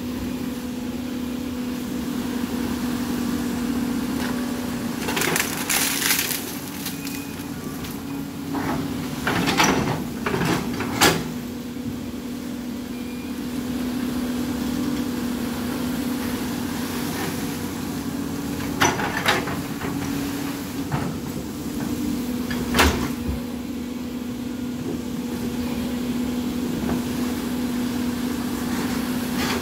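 CAT 320D L excavator's diesel engine running steadily while its bucket pushes through mud and a tangle of branches, with a handful of sharp cracks and crunches of wood snapping and breaking.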